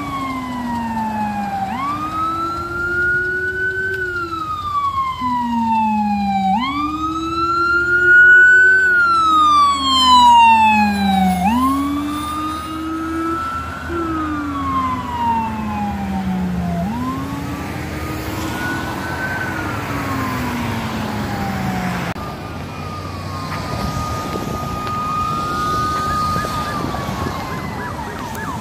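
Fire department emergency vehicle sirens wailing, rising and falling in slow sweeps every few seconds, loudest about eight to ten seconds in. Later a siren holds a steady tone, then switches to a fast yelp near the end, over steady traffic noise.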